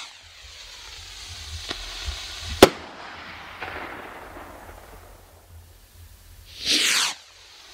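Patriot stick skyrockets: one bursts with a single sharp bang about two and a half seconds in, with a couple of fainter pops and a fading hiss around it. Near the end another rocket goes up with a loud whoosh that falls in pitch over about half a second.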